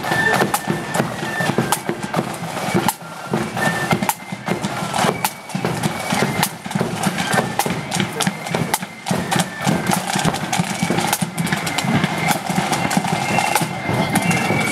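Marching band playing outdoors: high flute tones over drums, with many irregular sharp taps throughout.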